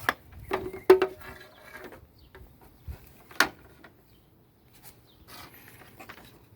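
Clicks and light rattling as a handheld battery tester's spring clamps and leads are handled and clipped onto the battery posts: a few sharp clicks near the start, around a second in, and once more partway through.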